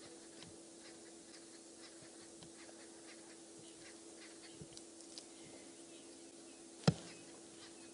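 Quiet background with a steady faint hum and scattered soft ticks and crackles, broken by one sharp click near the end.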